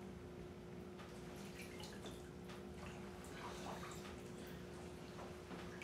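Faint drips and small movements of water in a filled bathtub as a person shifts about in it, over a steady low hum.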